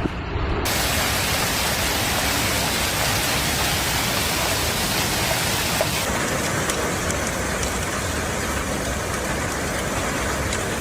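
Heavy rain pouring down in a dense, steady hiss. About six seconds in it changes to a slightly quieter downpour with scattered sharp ticks.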